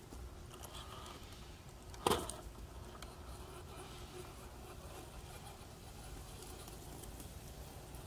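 Axial SCX10 III radio-controlled rock crawler working over rocks at low level, with one sharp knock about two seconds in as it comes down off the rock pile.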